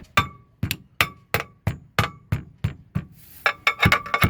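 Hammer blows on a metal fitting at the mast, knocking it back into place: sharp strikes about three a second, many with a short metallic ring. There is a brief pause a little past three seconds in, then the blows come faster.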